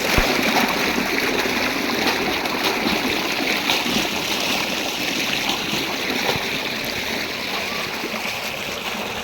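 Water rushing steadily in a mountain stream, a dense splashing rush.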